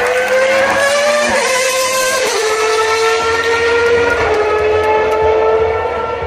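Renault V10 engine of the Williams FW14B Formula 1 car running at high revs with a high-pitched scream. It rises in pitch, falls back about a second in, then holds a steady high note.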